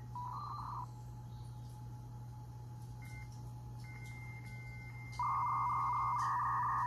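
A built-in 56K V.90 dial-up modem in a Compaq Presario 1245 doing its handshake through its speaker. A short warble comes first, then a faint steady high answer tone, then from about five seconds in a loud warbling two-tone negotiation. A steady low hum runs underneath.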